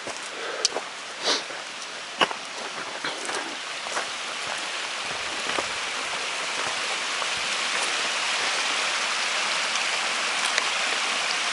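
Creek water rushing: a steady hiss that grows gradually louder over the first several seconds, then holds. A few sharp ticks and crunches come in the first couple of seconds.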